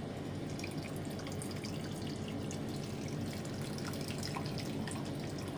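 Hot noodle-cooking water draining in a thin, steady stream from an instant-noodle cup into a plastic bowl, with small splashes as the stream hits the water in the bowl.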